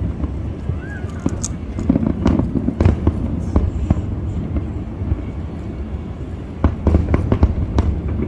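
Fireworks display: repeated sharp bangs and crackles over a low rumble, with a short whistle about a second in.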